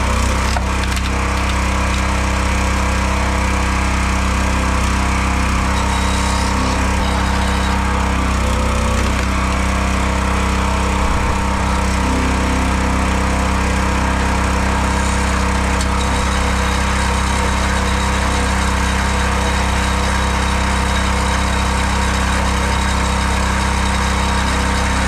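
Small petrol engine of a log splitter running at a steady note throughout while logs are split, with some cracking of wood.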